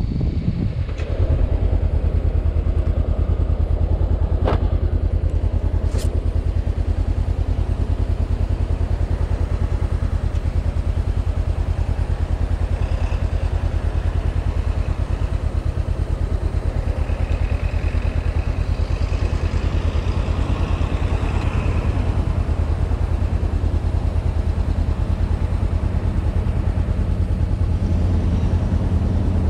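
A 2013 Honda CB500X's 471 cc parallel-twin engine idling steadily at a standstill, with a few sharp clicks in the first several seconds.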